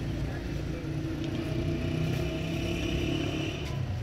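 Motor engines running steadily in street traffic, a low hum, with a higher tone joining from about a second in until near the end.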